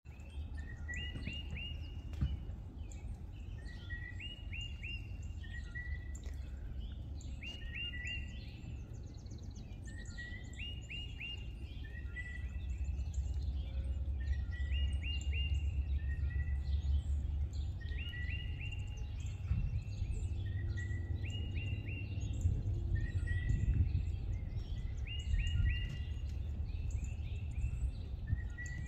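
A songbird singing the same short phrase over and over, about every two and a half seconds: a lead note followed by a quick run of three or four slurred notes. Underneath runs a steady low rumble.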